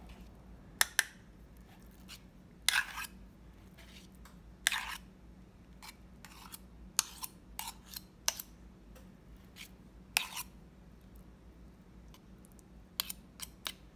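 Metal spoon scraping and tapping against a stainless steel measuring cup and a plastic yogurt tub as thick Greek yogurt is scooped, a scatter of short clicks and a few longer scrapes, with a quick run of taps near the end.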